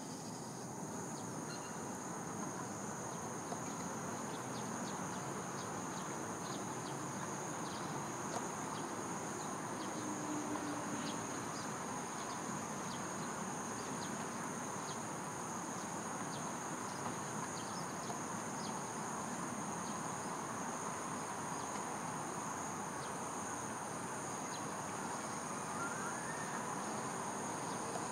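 Insects trilling steadily in two continuous high-pitched tones over a constant hum of distant ambient noise, with scattered faint short ticks.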